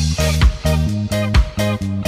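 Background music: a groove with a bass line of short held notes and a regular drum beat.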